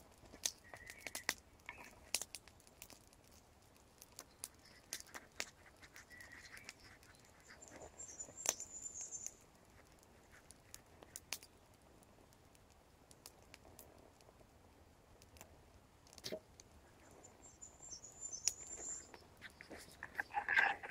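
A small fire of split kindling sticks crackling, with scattered sharp pops. A bird chirps briefly twice in the background, and there is a louder noise near the end.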